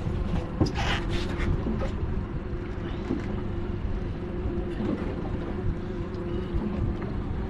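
Boat engine running steadily, with a few brief knocks in the first second or so.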